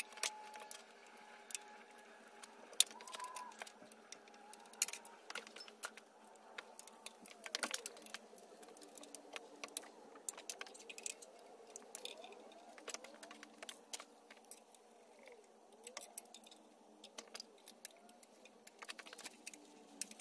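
Scattered clicks and light metallic clinks of hand tools, hose clamps and plastic wiring-harness connectors as hoses and the harness are worked off an engine, with the sharpest click about three seconds in.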